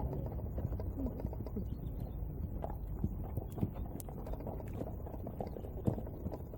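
Horse's hoofbeats, a run of small irregular thuds over a steady low rumble.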